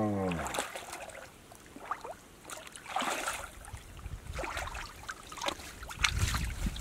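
Muddy pond water sloshing and splashing as a mosquito net is dragged through it, in irregular swishes that get busier near the end. A short low falling vocal sound at the very start.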